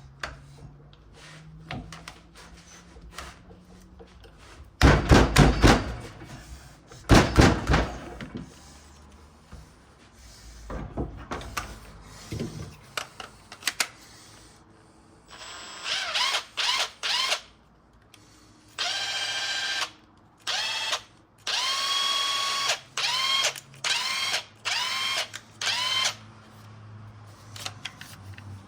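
Makita cordless impact wrench, just reassembled with a new 1/2-inch anvil, being test-run. Two short, loud rattling bursts come first, then from about halfway through a run of about ten short trigger pulls, the motor whining up and cutting off each time. It runs, so the anvil swap works.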